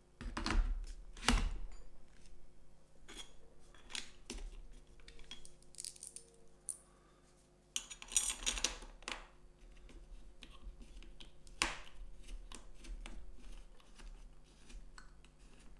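Handling noises of a jigsaw being fitted onto an aluminium quick-release base: irregular clicks, knocks and small metallic scrapes as parts are placed and a plastic thumb screw is turned by hand. Two sharp knocks come about a second in, and a busier stretch of clicking and scraping comes about halfway.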